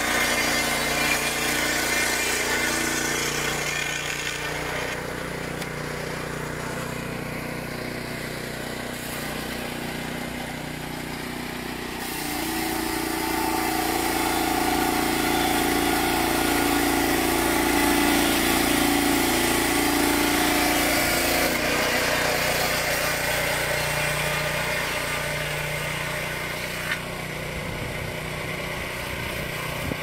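The engine of a Junior Peterson swingblade sawmill running steadily while the mill saws a board. Its note changes and grows louder for several seconds in the middle.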